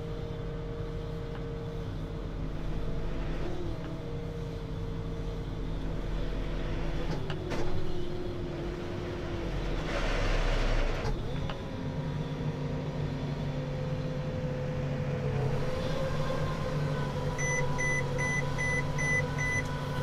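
A tractor engine runs steadily while pulling a Krone Comprima round baler, heard from inside the cab. There is a brief hiss about ten seconds in, and near the end a run of about six short electronic beeps.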